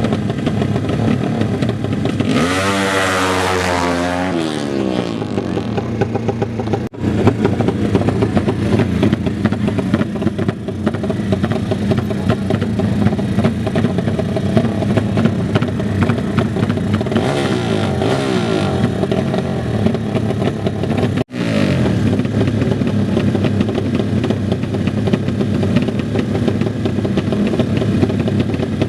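Drag-racing motorcycle engines running loudly. A hard rev about two seconds in sweeps in pitch and falls away, and another rev climbs around seventeen seconds. The sound drops out sharply for an instant twice, at about seven and twenty-one seconds.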